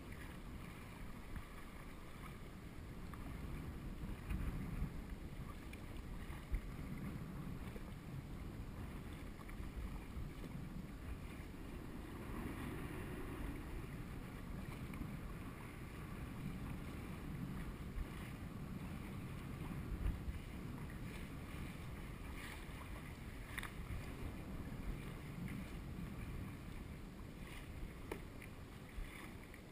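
Double-bladed kayak paddle dipping and splashing in the water in irregular strokes, over a steady low rumble of wind on the microphone.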